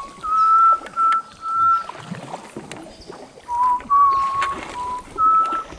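A person whistling a slow tune of clear, held notes that step up and down between a few pitches, with pauses between phrases.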